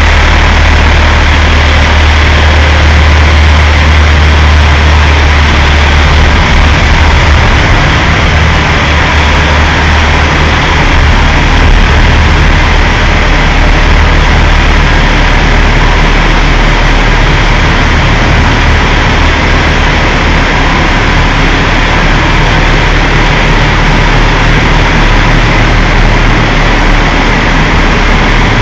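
Heavy semi-truck diesel engine running at low speed with a deep, steady rumble as the oversize-load rig creeps forward.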